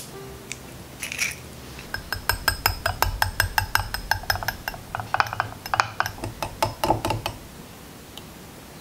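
A fork beating a raw egg in a small glass bowl, its tines clicking rapidly against the glass for about five seconds before stopping suddenly.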